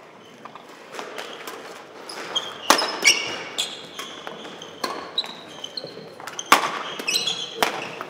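Badminton rally: sharp racket strikes on the shuttlecock at uneven intervals, ringing in the hall, with short high squeaks of court shoes on the wooden floor between shots.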